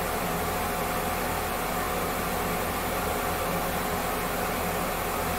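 Steady hum and hiss of a running fan, with a low electrical buzz underneath and no change in level.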